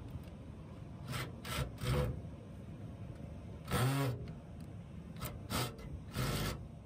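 Cordless drill driving a screw in a series of short trigger bursts, the motor whirring up and back down each time, as a capacitor's sheet-metal strap bracket is screwed to the blower housing.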